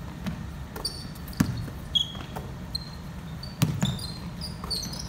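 A basketball bouncing on a wooden gym floor in a few uneven thuds, with sneakers giving short high squeaks on the court.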